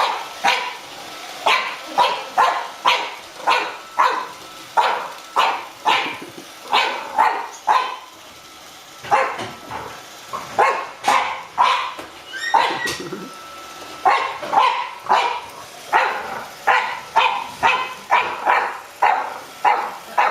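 French bulldog puppy barking over and over at a Roomba robot vacuum: short barks about one to two a second, with a brief pause partway through.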